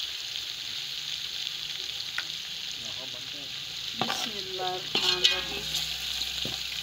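Chicken pieces frying in oil with onions, garlic and ginger in a steel pot, a steady sizzle, while a metal spoon stirs and knocks against the pot a few times about four to five seconds in.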